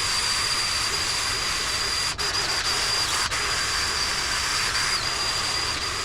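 Wire wheel spinning on a power tool and scrubbing rust and old paint off a Ford 302 V8's cast-iron engine block: a steady high whine over a harsh hiss, with two brief dips about two and three seconds in.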